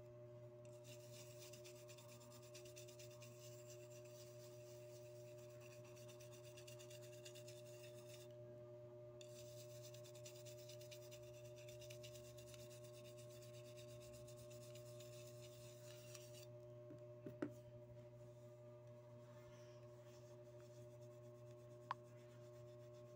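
Faint rubbing of a cloth polishing a metal security guard badge. It breaks off briefly about eight seconds in, stops around sixteen seconds, and is followed by two light clicks.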